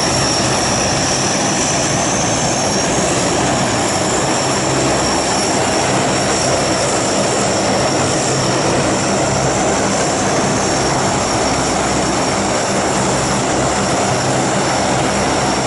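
Lockheed Hercules' four Allison turboprop engines running on the ground after startup, propellers turning: a loud, steady high whine over a deep propeller drone.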